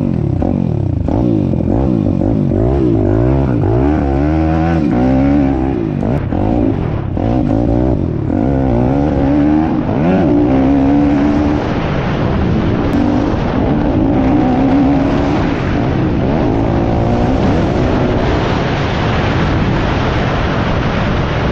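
Piranha P190 pit bike's single-cylinder four-stroke engine being ridden hard, revving up and falling back over and over as the throttle is opened and closed. Wind rushes over the helmet-mounted microphone, stronger in the second half.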